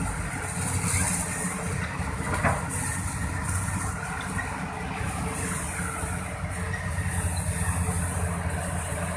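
Heavy diesel engine running steadily, with a single short knock about two and a half seconds in.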